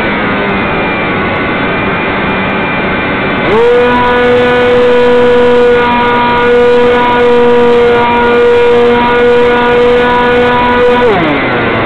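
Hobbyzone Stratocam's electric motor and propeller, heard from the onboard camera over rushing air. It whines at a lower pitch at first. About three and a half seconds in it rises sharply to a steady higher whine as the throttle opens, then glides back down near the end as the throttle is pulled back.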